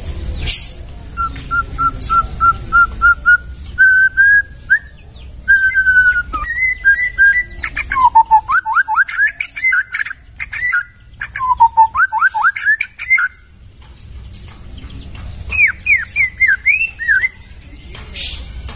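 White-rumped shama (murai batu) singing loud, clear whistled phrases: first a run of about nine quick, even notes on one pitch, then varied phrases with fast series of downward-swooping notes. After a pause of about two seconds, a last short phrase of rising and falling notes comes near the end.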